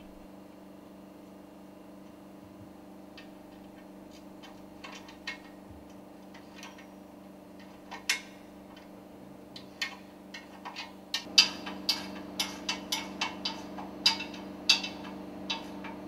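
Sharp metallic clicks and knocks as the two halves of a work table are fitted and secured around a piston rod, a few scattered at first and then coming quickly, with several louder knocks, through the last five seconds. A steady low hum runs underneath.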